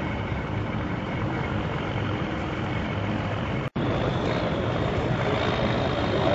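Engine of a heavy 6x6 army truck running steadily as it drives over rough ground. The sound drops out for an instant a little past the middle, then picks up again slightly louder with an M35 2½-ton 6x6 cargo truck under way.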